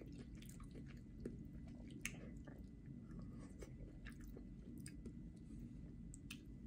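Quiet close-up chewing of soft pasta, with scattered small wet mouth clicks, over a steady low room hum.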